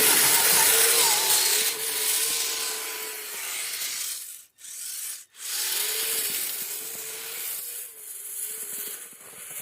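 Kyosho Blizzard RC snowcat driving through snow: the whine of its electric motor, wavering in pitch with the throttle, over the rasping of its tracks churning snow. The sound cuts out twice briefly near the middle.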